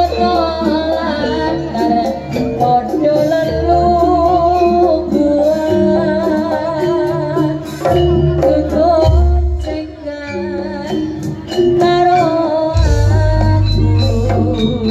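Jaranan music played live: a singing voice with a wavering, ornamented melody over busy drum and percussion strokes and deep, sustained bass notes.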